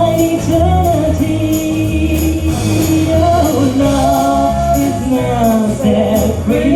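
Live band playing an instrumental break: a lead melody line with sliding, bending notes over a steady bass line and a regular high percussion beat.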